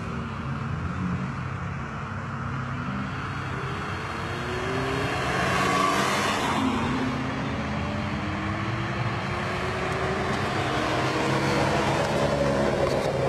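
Ferrari 599 GTO's V12 engine pulling away at moderate pace, its pitch rising several times as it accelerates, loudest as it passes close about six seconds in and building again near the end.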